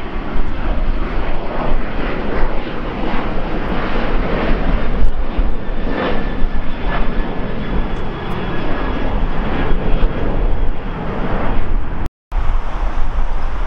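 Boeing 737 jet airliner's twin turbofan engines at climb power just after takeoff: loud, steady jet noise with a rough, crackling edge. The sound drops out briefly about 12 seconds in.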